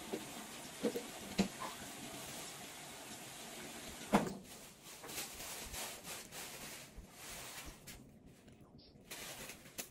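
A child eating a cake pop: a few brief mouth smacks and clicks, about a second in, at a second and a half and just after four seconds, over a steady background hiss.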